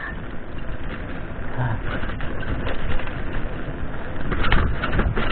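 Mountain bike rolling downhill over a rough dirt and loose-stone track: a steady rumble of tyres on gravel and the bike rattling, with a few sharp knocks from bumps.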